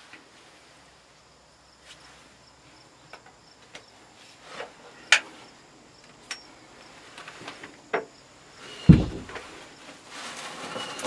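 Steady high insect trilling, broken by a few sharp clicks and knocks, then one heavy low thump about nine seconds in, the loudest sound. Birds start chirping near the end.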